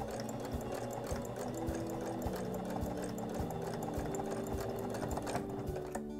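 Household electric sewing machine stitching steadily, its needle making a rapid, even run of clicks as it topstitches close to the edge of layered fabric. The clicking stops briefly near the end.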